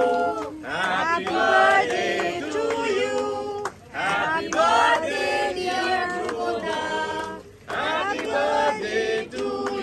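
A group of men and women singing a birthday song together, in phrases with short breaks between them.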